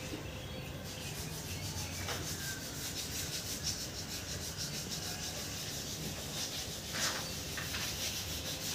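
Steady scratchy rubbing with fast, even strokes, several a second, and two louder scrapes about seven seconds in.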